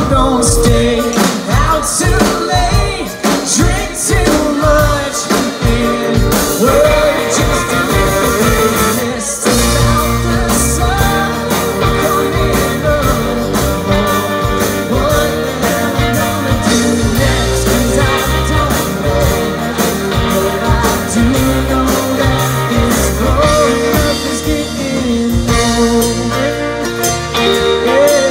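Live rock band playing a song on acoustic and electric guitars, bass, keyboard and drums; the low end fills out about nine seconds in as the full band comes in harder.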